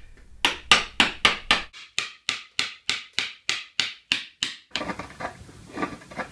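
Wooden mallet striking the handle of a wood-carving chisel in quick, even blows, about five a second, as the chisel cuts into Japanese cypress (hinoki). Near the end the blows stop and give way to fainter, irregular scraping and light tapping of a chisel pared by hand.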